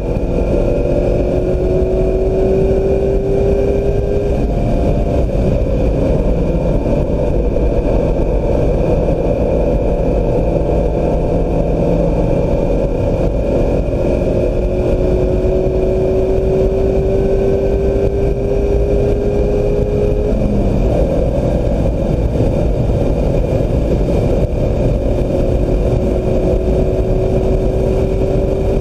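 2016 Mazda MX-5 Miata's 2.0-litre four-cylinder engine running hard on track, its pitch climbing slowly as the car accelerates, with a quick drop in pitch about two-thirds of the way through as it changes gear.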